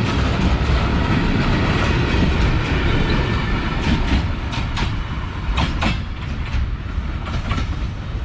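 Coal-loaded freight train's wagons rolling past with a steady rumble, and sharp clacks of the wheels over the rail joints in the middle; the sound eases a little toward the end.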